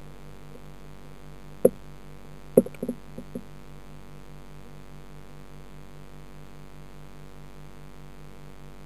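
Steady, pulsing electrical hum of the aquarium's filter pump heard underwater, with a single sharp knock about a second and a half in and a short run of knocks a second later.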